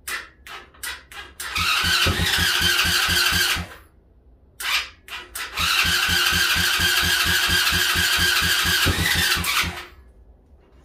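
ATV electric starter cranking the engine twice without it catching, in even pulses with a whine, each attempt preceded by a few sharp clicks and stopping abruptly. The engine won't fire because the battery is drained.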